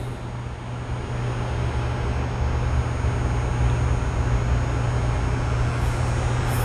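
Steady machine noise: a constant low hum with an even rushing noise over it, not changing or pausing.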